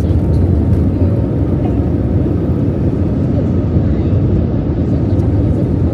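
Jet airliner's engines at takeoff thrust heard from inside the cabin during the takeoff roll: a loud, steady low rumble mixed with the runway rumble of the wheels.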